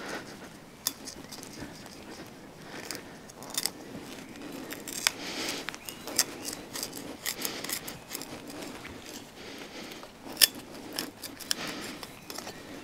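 The tip of a Cold Steel Survivalist knife being twisted back and forth to drill a hole: irregular scraping and rasping with scattered sharp clicks.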